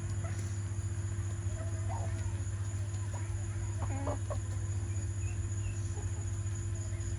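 Chickens clucking in a few short, scattered calls over a steady low hum.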